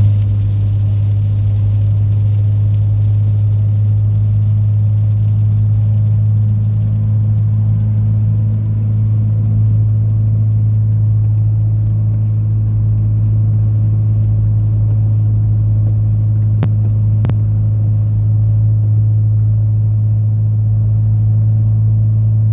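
Inside a moving car's cabin: a loud, steady low drone of engine and road noise, with heavy rain hissing on the windshield and roof that thins out over the first several seconds. Two short clicks a little over halfway through.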